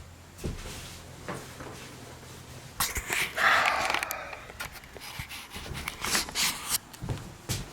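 Knocks, clicks and clatter of stored items being moved and handled during a search, with a louder rustling noise lasting about a second, about three seconds in.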